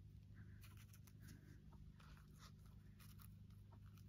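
Near silence: faint steady room hum with a few soft ticks and rustles of paper being handled.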